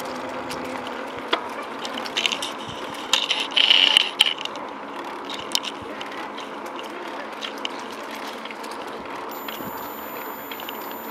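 Bicycle rattling and clicking as it rolls along a gravel path, with ratchet-like ticking from the bike's drivetrain, and a louder rattle about three seconds in.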